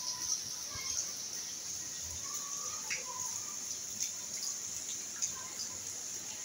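Outdoor ambience: a steady high-pitched drone, typical of insects such as crickets or cicadas, with short bird chirps scattered through it.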